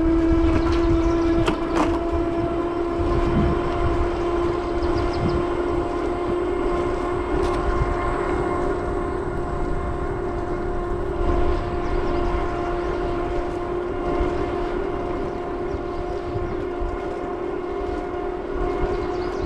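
Electric Bike Company Model E e-bike's motor whining steadily under throttle, one held tone that creeps slightly up in pitch, with wind rumbling on the microphone.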